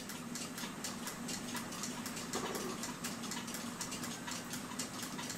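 Quiet room tone: a faint steady low hum with a faint, fast, even ticking throughout.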